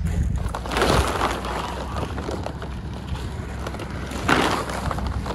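Engine of a GAZ truck running steadily as the loaded truck drives slowly up, with gusts of wind buffeting the microphone about a second in and again near the end.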